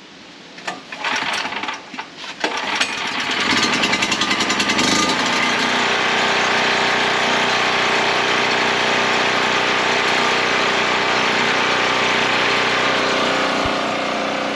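Predator 4000 portable generator's single-cylinder engine being started: a few short cranking sounds in the first couple of seconds, then it catches about three seconds in, pulses unevenly for a moment and settles into steady running.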